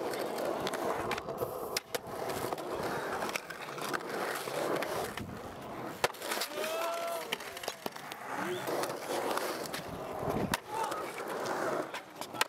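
Skateboard wheels rolling through a concrete bowl, with several sharp clacks as the board and trucks hit the coping and concrete.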